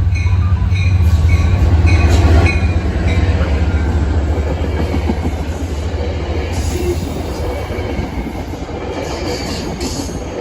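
A train passing close by: a heavy low diesel-locomotive rumble, loudest in the first couple of seconds, then slowly fading as the cars roll past on the rails.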